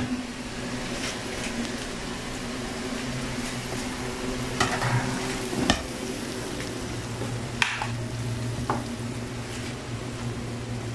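Marinated chicken wings sizzling in a pan under an oven broiler, over a steady hum, with a few sharp clicks and knocks in the middle.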